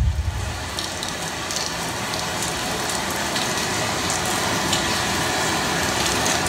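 A steady rain-like hiss from the show's soundtrack on the venue sound system, building slightly, with a few faint crackles.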